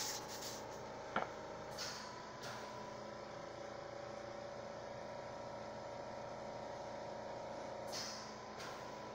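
Steady hum of a machine running in a small room, with a few brief clicks and rubs from the phone being handled close to the microphone, the sharpest about a second in and more near the end.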